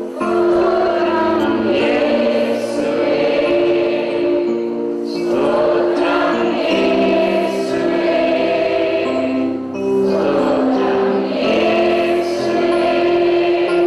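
Choir singing a worship song in long held phrases that break every few seconds.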